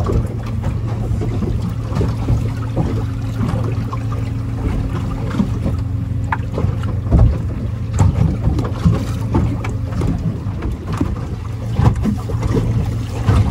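Wind noise and the open-water ambience of a small boat, over a steady low hum, with occasional knocks, a few of them louder, about seven, eight and twelve seconds in.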